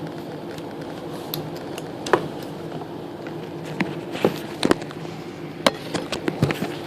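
Scattered light clicks and taps of a screwdriver and metal carburetor parts being handled as stripped float-bowl screws are worked loose, about eight in all, over a steady low hum.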